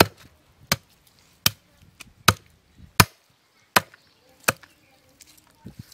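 Large curved chopper blade chopping raw chicken into pieces on a wooden log: seven sharp chops at an even pace, about one every three-quarters of a second.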